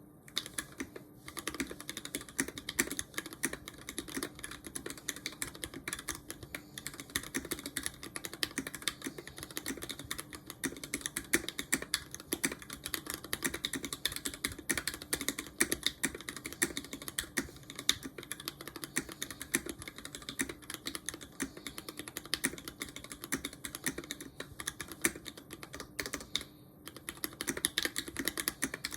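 Typing on a Tofu60 mechanical keyboard built on a DZ60RGB V2 board with Lavender switches: a fast, continuous run of keystroke clacks, with a brief pause near the end.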